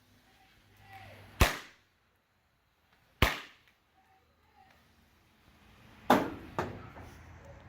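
Planet X Arcade Classics 7-shot consumer fireworks cake firing its shots: single sharp bangs about a second and a half in and a little past three seconds, then two more close together near the end.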